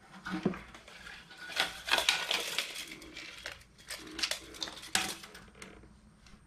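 Steel tape measure being handled on a wooden board: the metal blade rattles and scrapes as it is pulled out and moved across the board, with scattered clicks and taps. The busiest stretch comes about two seconds in, and there is a sharp tap about five seconds in.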